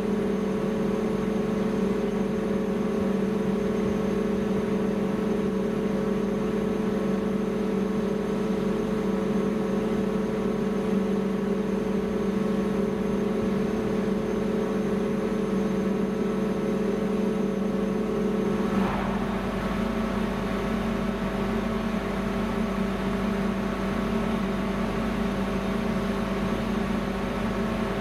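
Steady hum of a car ferry's on-board machinery, several steady tones over a low drone. About two-thirds of the way through there is a brief rush of noise and the mix of tones shifts.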